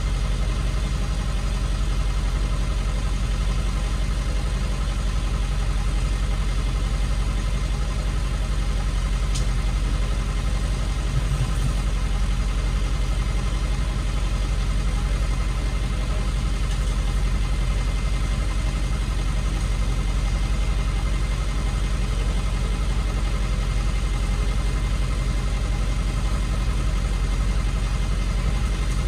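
Tow truck engine idling steadily, heard from inside the truck's cab.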